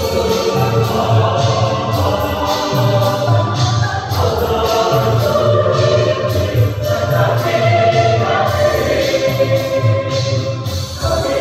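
Mixed amateur church choir of women's and men's voices singing together in parts, over a regular low beat.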